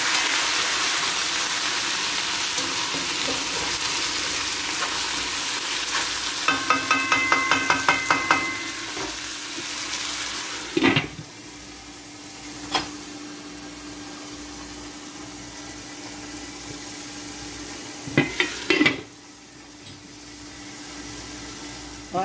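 Meat frying in oil in a frying pan: a loud steady sizzle, with a quick run of taps from a utensil stirring against the pan about seven seconds in. A knock about eleven seconds in as a glass lid goes on, after which the sizzle carries on quieter and muffled under the lid, with a few more knocks near the end.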